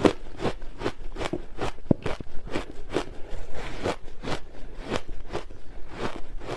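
Ice chunks dusted with matcha powder being chewed close to the microphone: a steady run of sharp crunches, about two or three a second.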